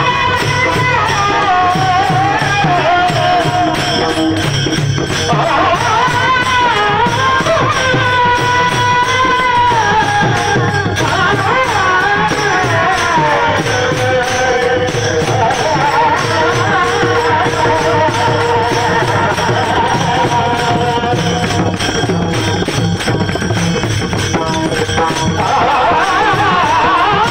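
Varkari bhajan singing: a man's high, drawn-out alaap with long held notes that glide and waver, over a steady beat of hand percussion with jingling.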